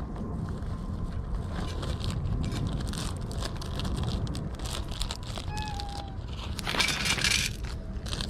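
Stray cats eating from a steel dish: many small lapping, chewing and clicking sounds against the metal, over a low rumble of wind on the microphone. A short, louder burst of hissing noise comes about seven seconds in.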